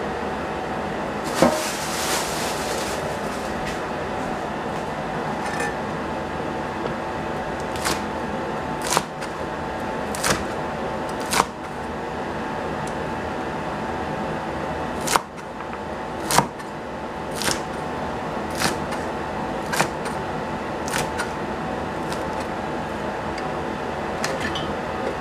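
Cleaver chopping through a bundle of long beans onto a plastic cutting board: a sharp chop about once a second, starting about a third of the way in, over a steady background hum.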